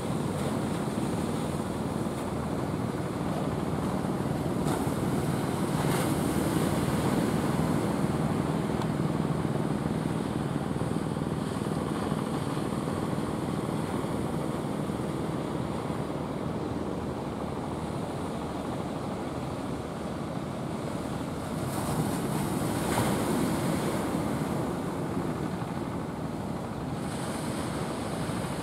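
Ocean surf washing and breaking steadily, with wind on the microphone; the wash swells louder twice, around six seconds in and again a little past twenty seconds.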